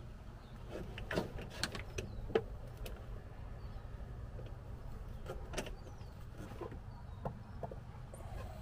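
Faint scattered clicks and light rustling of a plastic junction box and its cables being handled and held against the plastic battery tray, over a low steady hum.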